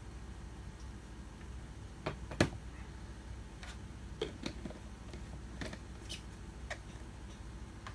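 Scattered sharp clicks and knocks of a plastic portable battery blender being handled, its jar turned upright and fitted on its base, with one loud knock about two and a half seconds in; the blender motor is not running.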